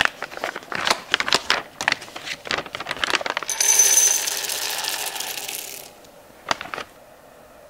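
Foil coffee bag crinkling as it is pulled open, then whole roasted coffee beans poured in a stream into an electric coffee grinder's hopper for about two seconds. Two light knocks follow near the end.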